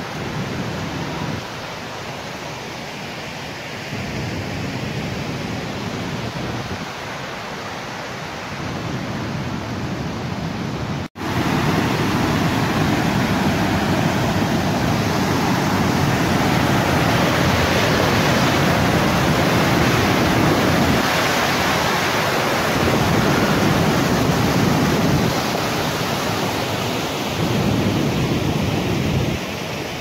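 Waterfall water rushing as a steady noise. It drops out for an instant about eleven seconds in, then comes back louder and brighter.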